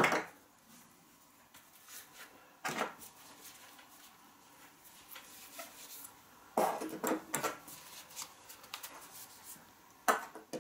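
Light handling clatter on a workbench: a few short knocks and clacks as hard wooden fishing lures and a metal hand tool are picked up and set down, with a cluster of them a little past the middle and one more near the end.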